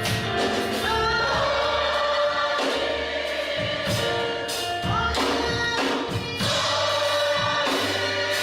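Gospel music: a choir singing held chords over a band with bass and drums.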